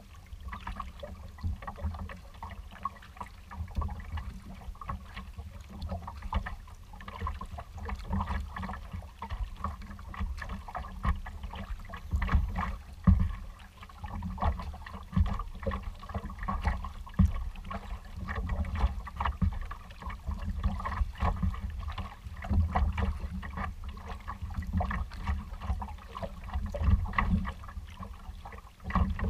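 A kayak being paddled across choppy water: water slapping and splashing irregularly against the hull and paddle, under a steady gusty rumble of wind on the microphone.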